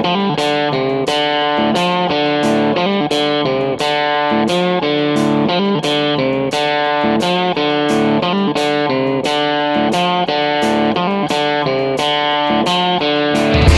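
Background music: a picked guitar melody with a steady, quick run of notes.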